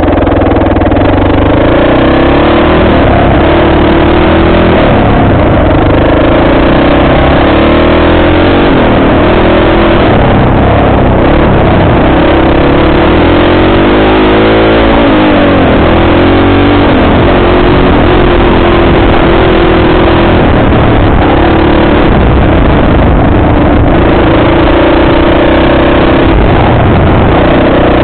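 Off-road vehicle engine running loud and close while riding a dirt trail, its pitch rising and falling with the throttle, with a quick rev up and down about halfway through.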